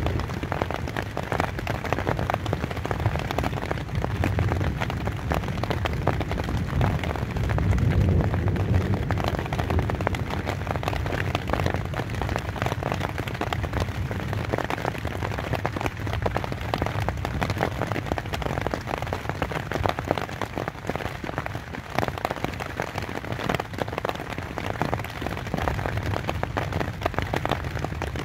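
Rain pattering steadily on a tent's fabric, a dense patter of drops with a deep rumble beneath, heavier for a few seconds about eight seconds in.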